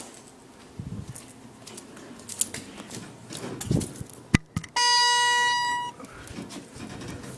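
Elevator's electronic signal tone: a sharp click, then a single steady beep lasting about a second that cuts off abruptly, with light handling clicks and rustles around it.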